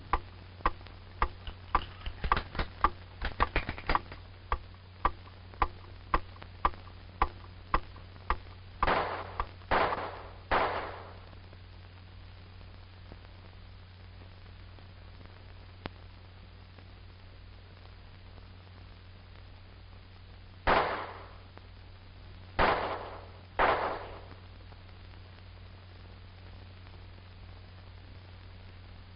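Pistol shots with a reverberant tail in an indoor range: three in quick succession about nine to eleven seconds in, then three more spaced out around twenty-one to twenty-four seconds in. Before them, a steady ticking at about two or three ticks a second.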